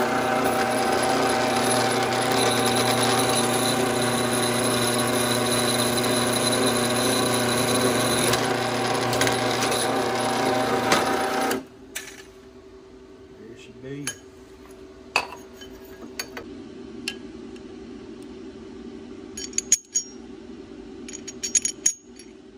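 Drill press running, its bit cutting into a metal plate clamped in a vise, a loud steady drone. It stops abruptly about halfway through, leaving a faint steady hum with a few scattered clicks and knocks of the part being handled.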